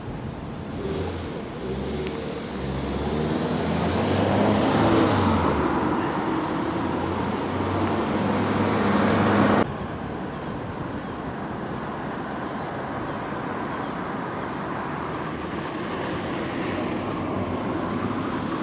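Road traffic noise with changing engine tones, growing louder through the first half. It cuts off abruptly about halfway through and gives way to a steadier, quieter traffic hum.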